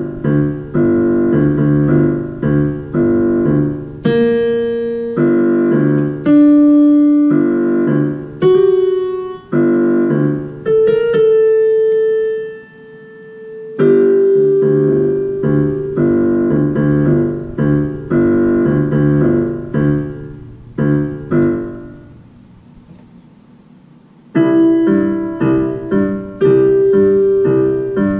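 Portable digital keyboard played on a piano voice: repeated chords in a steady rhythm, broken by a few single held notes a few seconds in. The sound dies away about 22 s in, and playing starts again about two seconds later.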